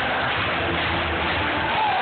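Large basketball arena crowd cheering, a steady roar of many voices heard through a phone's microphone.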